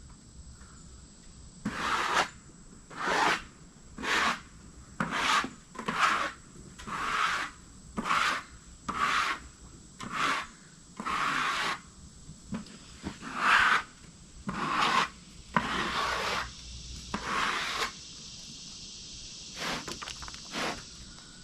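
Repeated rasping strokes on wood, about one a second, each lasting half a second or so; they pause at about 18 seconds, then two more come near the end.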